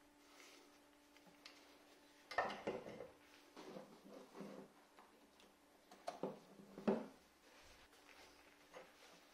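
Gloved hands handling a welding electrode holder with its rod and a plug and cable on a wooden bench: rustling, with a few sharp clacks and knocks as the pieces are set down on the wood, the loudest near the middle and end.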